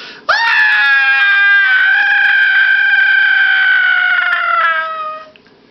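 A long, high-pitched wailing cry that starts suddenly, holds its pitch for about five seconds while sagging slowly, and slides down before cutting off near the end.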